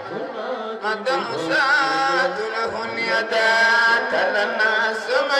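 Male voices chanting a religious song into microphones over a sound system, with wavering, ornamented lines and long held notes.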